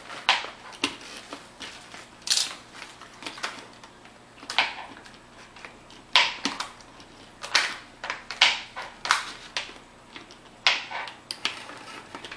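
Hand-operated plunger food chopper pressed down again and again, chopping. It clacks sharply and irregularly, about one to two clacks a second.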